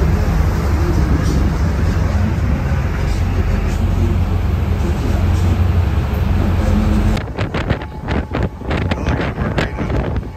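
Steady low rumble of wind and the engines of a moving passenger ferry on its open deck. About seven seconds in it cuts to gusty wind buffeting the microphone.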